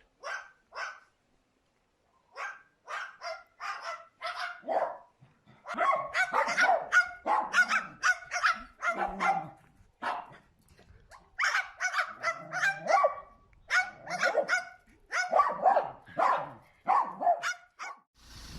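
Dog barking repeatedly: a couple of single barks at first, then a short series, then two long runs of rapid barking with a brief pause between them.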